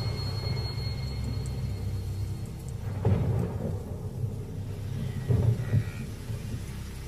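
Thunder rumbling low from a rainstorm, swelling about three seconds in and again, more loudly, a little past five seconds.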